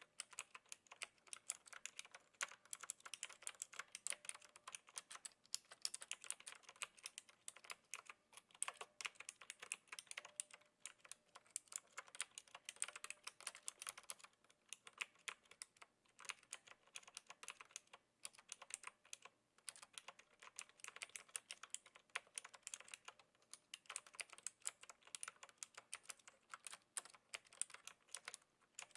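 Steady typing on a Knewkey Rymek typewriter-style mechanical keyboard with clicky blue switches: a rapid run of keystroke clicks with a few short breaks.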